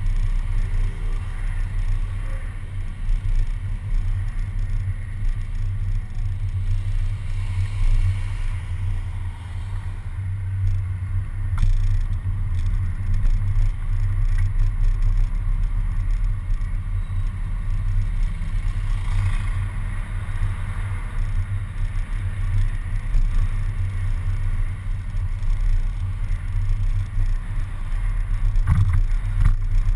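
Steady low rumble of a moving city bus, with road and wind noise, picked up by a camera suction-mounted on the bus's front. Two brief knocks come through, about eleven seconds in and near the end.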